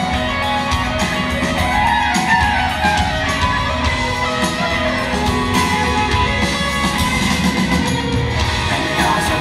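Live rock band playing: electric guitars over drums keeping a steady beat.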